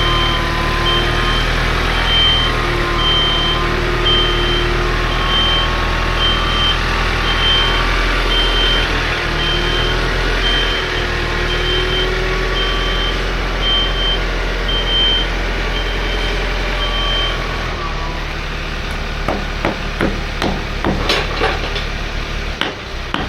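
A heavy machine's engine runs steadily while its reversing alarm beeps about once a second. The beeping stops about three-quarters of the way through and the engine quietens. A run of sharp knocks and clicks follows near the end.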